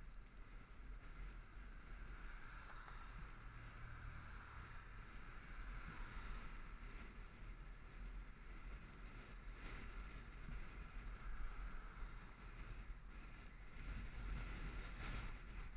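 Steady rush of wind over a moving action camera's microphone, with a low rumble of road noise while travelling along an asphalt road.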